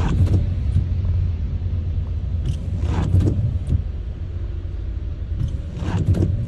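Steady low road rumble inside a car driving on a rain-soaked road, with the windscreen wiper swishing across the wet glass about every three seconds.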